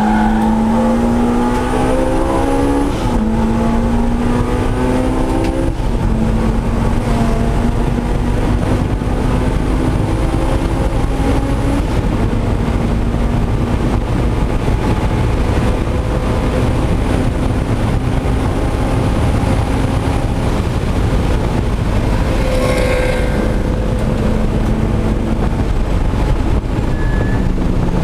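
Supercharged Honda S2000's four-cylinder engine under hard acceleration, heard inside the cabin: the pitch climbs and drops at upshifts about three and six seconds in, then holds high and fairly steady. A faint high whine rises and falls with the revs.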